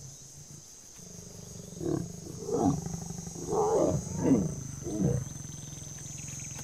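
Male lion calling in a series of about five rough roars, starting about two seconds in, the loudest a little past the middle; the calls a male lion gives while mating.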